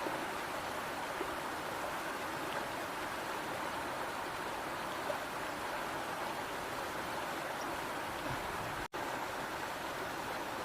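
River water rushing steadily, with a momentary break about nine seconds in.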